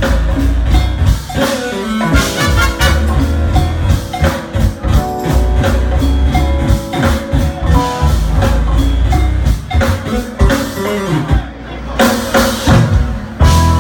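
Live jazz-fusion band playing, with drum kit, bass and guitar to the fore over a steady groove; about eleven seconds in the band briefly drops back, then comes in again on a full hit.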